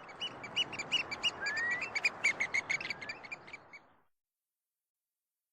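Birds chirping: a rapid chatter of many short, high chirps and a few rising calls over a rushing background noise. It fades out about four seconds in.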